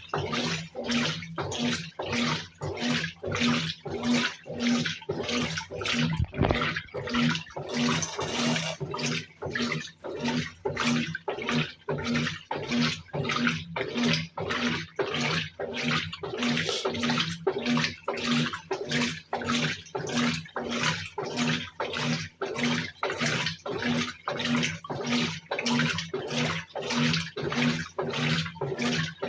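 Brastemp 17 kg top-loading washing machine agitating in its wash stage on turbo agitation: the agitator churns water and clothes back and forth in a steady rhythm of about one and a half strokes a second, with a motor hum pulsing on each stroke.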